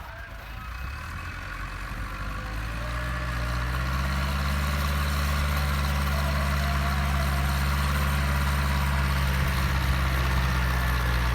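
Massey Ferguson 274S tractor's diesel engine running with a steady low note. It grows louder over the first few seconds, then holds level.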